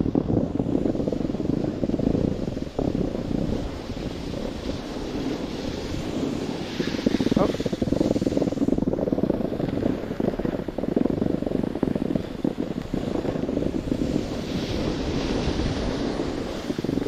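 Wind buffeting the microphone and a snowboard sliding downhill over the snow, a continuous low rumble with crackle from the board on the snow. A louder scraping hiss comes twice, about seven and fifteen seconds in.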